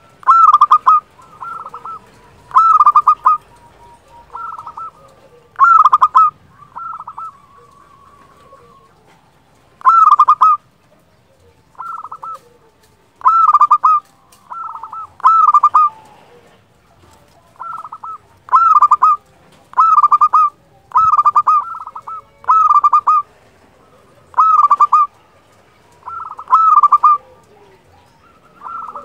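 Zebra dove (perkutut) cooing in its clear, flute-like voice: short phrases of a few quick notes, repeated every second or two, with a longer pause about a third of the way through.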